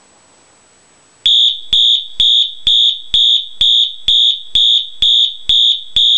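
Wheelock MT24-LSM fire alarm horn sounding its march-time pattern. Short, evenly spaced horn blasts come about twice a second, starting a little over a second in.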